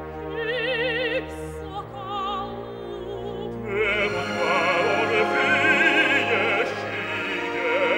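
Operatic duet with orchestra: a soprano sings a short questioning phrase with wide vibrato over low sustained orchestral tones. About four seconds in, the orchestra swells louder as a bass voice answers.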